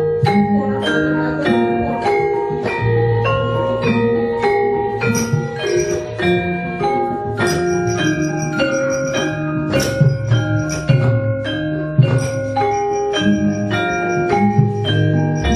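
Javanese gamelan playing brisk battle music for a wayang kulit fight scene: bronze metallophones and gongs ring out a fast run of notes over lower sustained tones. Sharp clacks cut through, the dalang striking the keprak and cempala that drive the puppet fight.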